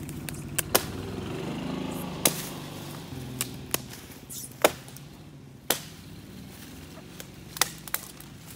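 Hatchet chopping limbs off a felled tree's trunk: about nine sharp, irregularly spaced wooden strikes, some in quick pairs. A low droning engine hum runs underneath and fades out about halfway through.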